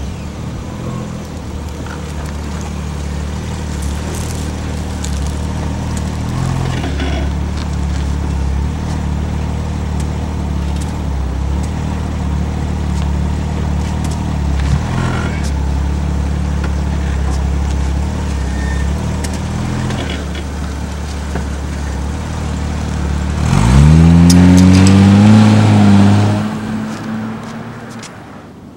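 Car engine idling steadily, then revving hard with a rising pitch about 23 seconds in as the car pulls away, then fading out near the end.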